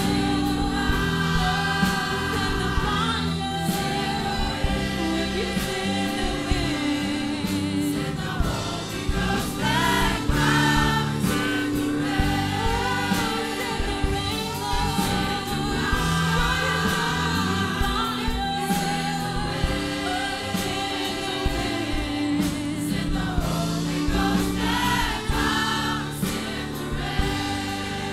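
Gospel worship music: a group of voices singing together over instrumental accompaniment, with steady sustained chords.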